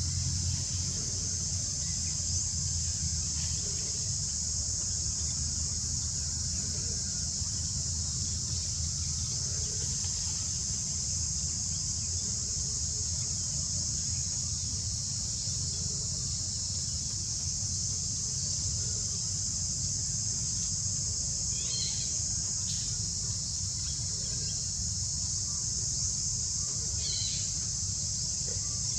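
Steady high-pitched insect drone, unbroken throughout, over a low rumble. Two brief high chirps stand out in the last third.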